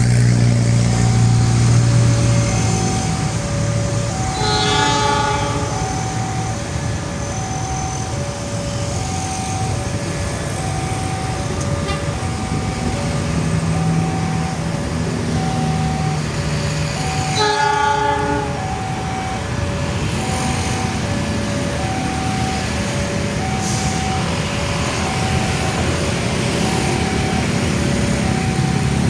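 CC203 diesel-electric locomotive hauling loaded tank wagons at a crawl, its engine rumbling steadily as it approaches under a trackwork speed restriction. It sounds two short horn blasts, about four seconds in and again about seventeen seconds in. A two-note warning tone alternates steadily throughout.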